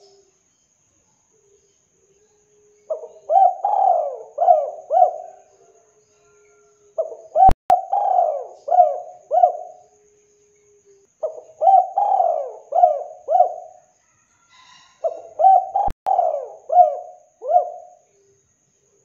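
Spotted dove (tekukur) cooing: four phrases of four or five repeated coos each, with a pause of about a second and a half between phrases.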